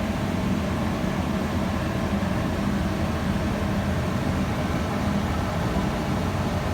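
Heavy machinery on a fishing boat running steadily, giving an even, dense low rumble that does not change.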